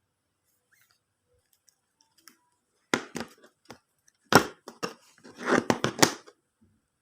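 Handling noises of small hard objects: a run of clicks, taps and short scraping and rustling sounds, starting about three seconds in and stopping after about six seconds.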